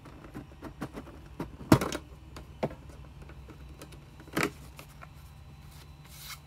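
Metal Pokémon card tin being opened and emptied by hand: scattered clicks and knocks of the tin and its contents, with a sharp knock about two seconds in and another about four and a half seconds in, and a short rustle of packs and cardboard near the end.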